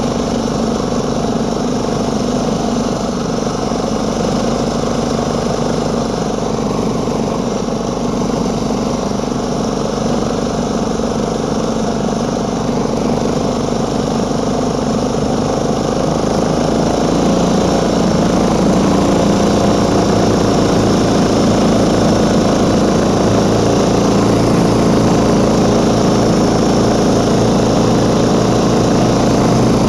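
Small engine of a homemade single-ski snow scooter running steadily under way across snow. About halfway through it grows louder and holds at the higher level.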